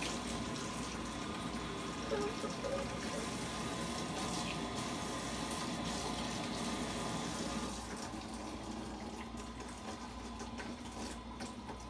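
Water running steadily from a tap as something is rinsed under it; the flow gets quieter about eight seconds in.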